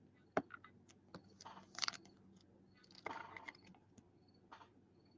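Trading cards being handled and flipped through: a few faint light clicks and short rustles of card stock and plastic.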